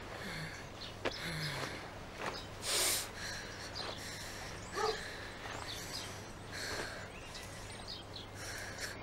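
Outdoor ambience: scattered short bird chirps and small knocks over a low steady hum, with a brief hissing burst about three seconds in that is the loudest sound.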